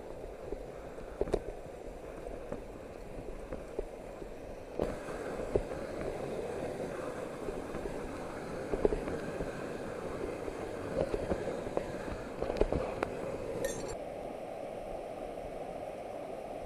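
Steady rush of a tall mountain waterfall, with scattered sharp clinks and knocks of metal canyoning gear against rock.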